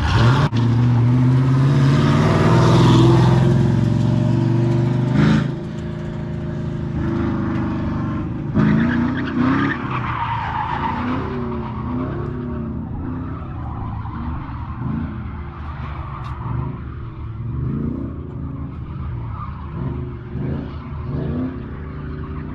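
Drift Chevrolet C10 pickup's 6.0-litre V8 held at high revs while the tires squeal in a long slide, for the first five seconds or so. After that the truck is further off: the engine revs up and down over and over, with another spell of tire squeal about nine to eleven seconds in.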